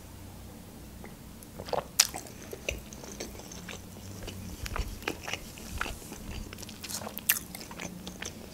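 Quiet mouth sounds of eating and drinking close to the microphone: small scattered clicks and smacks of swallowing and chewing, with a few sharper clicks, one about two seconds in and another near the end.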